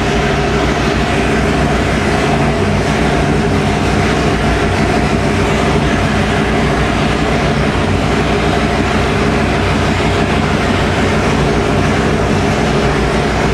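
Roots-supercharged 572 cubic inch big-block Chevrolet V8 running at a steady speed: a loud, even drone that holds one pitch with no rise or fall.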